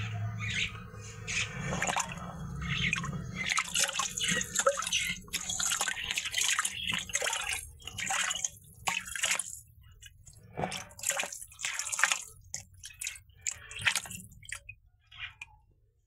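Water splashing and sloshing in a shallow basin as an African catfish thrashes: a run of irregular splashes that thin out near the end.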